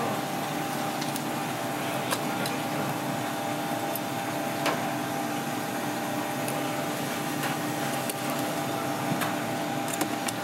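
Steady machine hum with two steady tones, with a few faint clicks of a kitchen knife against a plastic cutting board as it cuts through fish skin.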